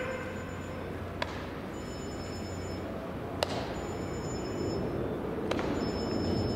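Ballpark ambience at baseball practice: a low murmur with three sharp knocks of baseballs, about two seconds apart, the middle one the loudest.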